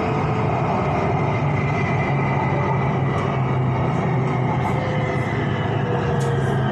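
Electric BTS Skytrain running along its elevated track, heard as a steady rumble with a low hum, a faint motor tone that dips slightly in pitch about five seconds in, and a few light ticks.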